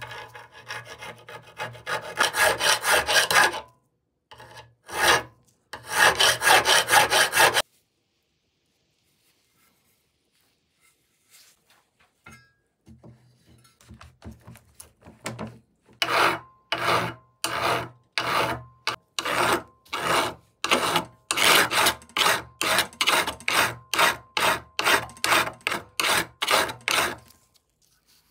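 Abrasive hand strokes rubbing back and forth over the metal trowel, as in sanding or filing during its restoration. A fast, dense run of strokes comes first, then several seconds of near quiet, then a steady run of about two strokes a second that stops just before the end.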